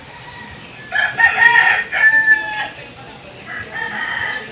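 A rooster crowing: one loud crow starting about a second in and lasting about a second and a half, then a fainter call near the end.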